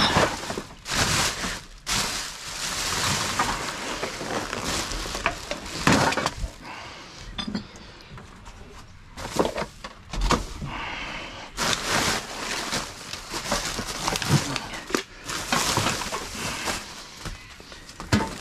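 Rubbish bags being dragged out and rummaged through: plastic crinkling and rustling throughout, with many short knocks and the clink of cans and glass bottles.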